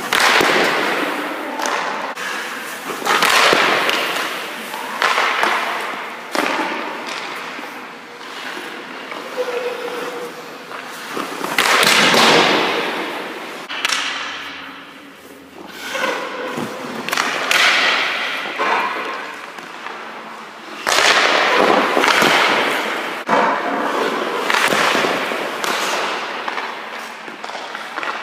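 Hockey goalie's skate blades scraping and carving on ice in repeated short swells as he pushes and slides across the crease, with sharp knocks of pucks and pads, echoing in the empty rink.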